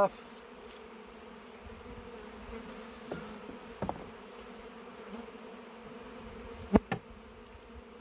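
Honeybees buzzing steadily in a cloud around an opened hive, a steady hum. There are a couple of soft taps about three and four seconds in, and a sharp double knock near the end.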